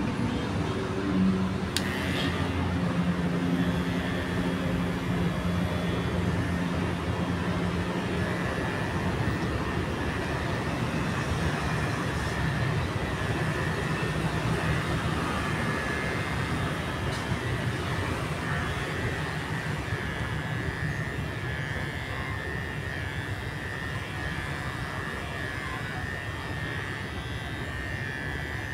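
Electric hair clippers running with a steady high-pitched hum during a haircut, starting about two seconds in.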